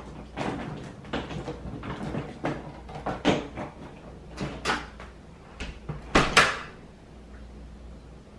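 A string of irregular knocks and clunks, like things being handled and set down, the loudest two about six seconds in.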